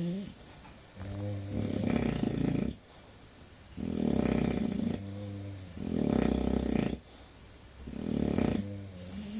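English bulldog snoring: four rattling snores about two seconds apart, each followed by a shorter, higher whistling breath.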